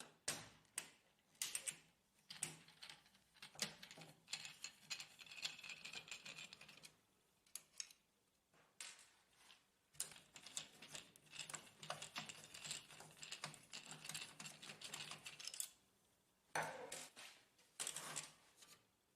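Faint, irregular clicking and light scraping of plastic and metal parts being handled as the cooling fan is worked loose from an HP LaserJet printer, with denser runs of small clicks a few seconds in and again in the middle.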